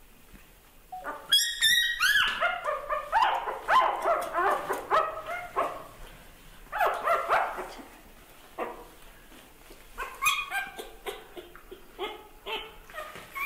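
A young puppy whimpering and yelping in a run of short, high-pitched cries that rise and fall. The cries come in bouts, starting with a burst of shriller squeals about a second in, and return near the end.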